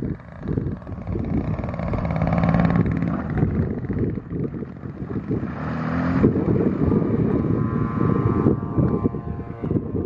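Heavy wind buffeting and rumbling on the microphone, over the droning engine and propeller of a radio-controlled DHC-2 Beaver scale model airplane. About six seconds in, the engine note rises as it is throttled up. Near the end, a higher engine note falls slightly as the plane passes and climbs away.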